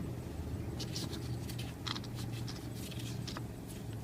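Light clicks and rustles of oil-filter parts being handled by hand, over a steady low hum.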